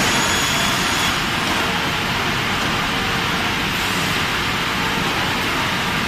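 WPC and LVT flooring slotting machine line and its dust extraction running: a steady, even machine noise with a faint steady hum through it.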